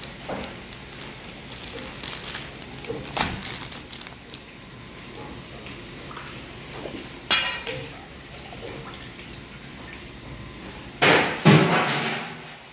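Handling noise from whole raw chickens in clear plastic bags: the bag crinkling, light knocks on the cutting board and steel pan, and a louder rustle near the end as a chicken comes out of its bag onto the board.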